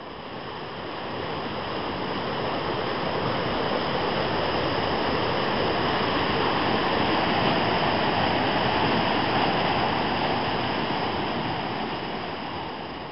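Rushing whitewater of a fast river rapid, a steady loud wash of water that swells in over the first few seconds and fades out near the end.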